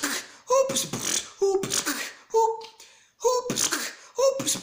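Human beatboxing: a repeating mouth-made drum pattern of sharp kick and hi-hat sounds, each beat carrying a short hummed note, about one beat a second.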